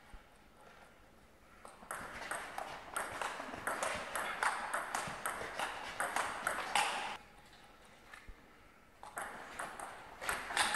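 Table tennis rally: the ball clicks quickly back and forth off the bats and bounces on the table in a run lasting about five seconds. After a short pause, another run of clicks starts near the end.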